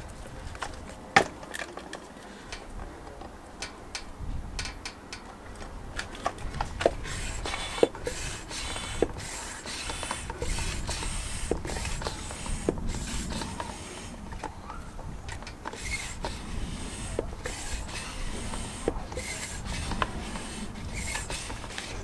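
Air pump inflating a mobility scooter's front inner tube, heard as irregular rubbing and scraping with scattered clicks.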